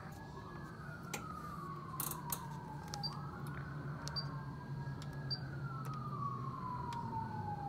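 A wailing siren, its pitch sweeping up quickly and then sliding slowly down, over and over in cycles of about two and a half seconds, over a low steady hum and a few faint clicks.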